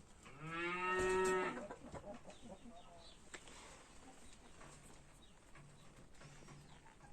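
A cow mooing once, a single call lasting about a second and a half near the start.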